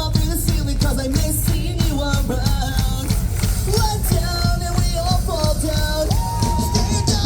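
A pop-punk band playing live with a fast drum-kit beat and a melody over it. A long held note comes near the end.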